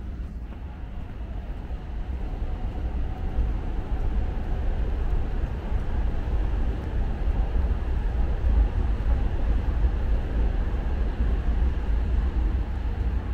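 Steady low vehicle rumble that builds over the first few seconds, holds, and eases slightly near the end.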